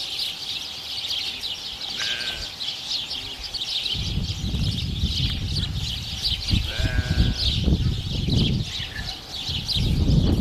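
Two short bleating calls from a farm animal, about two seconds and seven seconds in, over a constant high chirping. From about four seconds in, a low rumble sits on the microphone.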